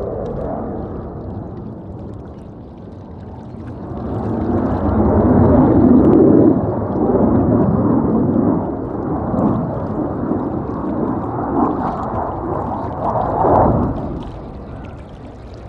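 Jet noise from a CF-18 Hornet fighter's twin General Electric F404 turbofans in flight. It rises about four seconds in to a loud, wavering rumble that surges several times, then falls away near the end.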